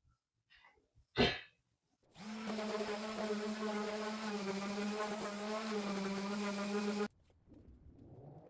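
Electric power sander running steadily as a hum over hiss for about five seconds. It starts about two seconds in and cuts off suddenly.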